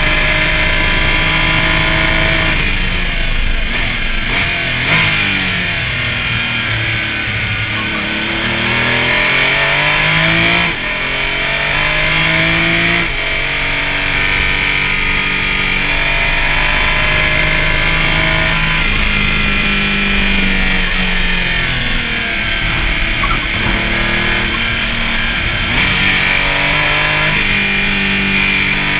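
Porsche Cayman race car's engine at racing speed. Its note climbs through the gears, drops sharply at each upshift and winds down under braking, over a steady hiss of wind and tyre noise.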